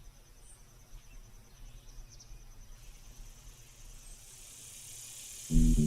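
Faint insects chirring in a steady, rapidly pulsing high trill, with a soft hiss swelling underneath. Loud music cuts in abruptly near the end.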